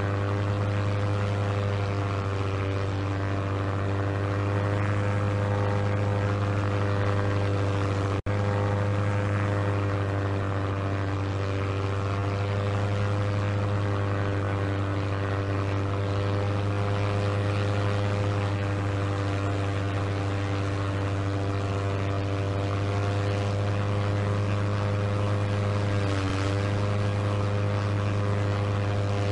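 Propeller aeroplane engine droning steadily in flight, a low hum with a slight waver in pitch. The sound drops out for a split second about eight seconds in.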